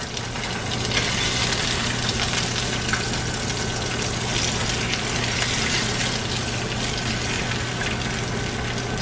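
Eggs frying in hot vegetable oil in a nonstick pan: a steady, even sizzle.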